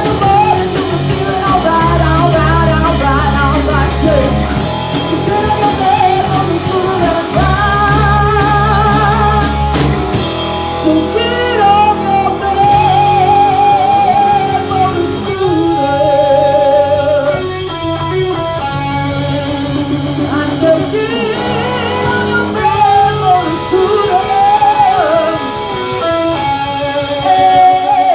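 Rock music: electric guitar, bass and drums, with a wavering, bending lead line on top.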